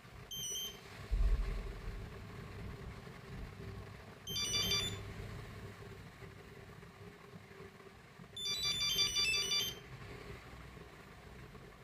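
Nokia 8250 mobile phone playing a monophonic ringtone through its small speaker: short phrases of high beeping notes that repeat about every four seconds, the longest one near the end. A low bump about a second in.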